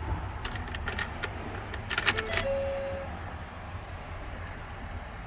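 Keys and the door latch of a 2011 Ford F-250 clicking and rattling, with a quick cluster of clicks about two seconds in followed by a single short beep, over a steady low rumble.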